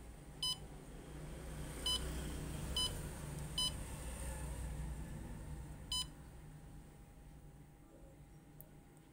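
Key-press beeps from a Xerox WorkCentre 7225 copier's touchscreen as letters are tapped on its on-screen keyboard. There are four short beeps in the first four seconds and one more about six seconds in, over a low hum.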